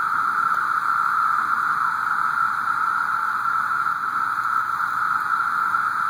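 A chorus of many cicadas buzzing together in one steady, unbroken drone.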